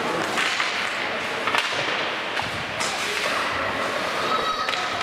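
Ice hockey play in an indoor rink: a steady wash of skates on ice and arena noise, broken by a few sharp cracks of sticks and puck about a second apart.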